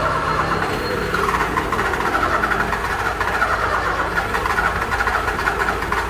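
A car's starter solenoid chattering in a rapid run of clicks (the 'tec tec') while the key is held to start, the engine not cranking over: a car with a starting problem that won't start. The clicking gets a little louder about a second in.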